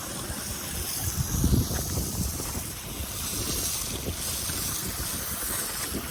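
Wind buffeting the microphone outdoors, uneven low rumbling gusts over a steady hiss, strongest about a second and a half in.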